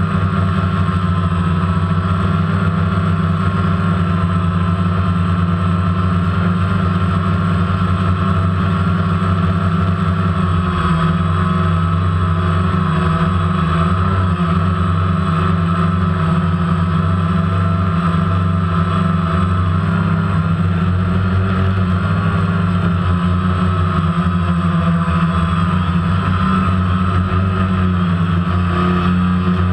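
DJI Phantom quadcopter's electric motors and propellers whirring steadily, heard up close from the camera on the drone, the pitch wavering slightly as it flies.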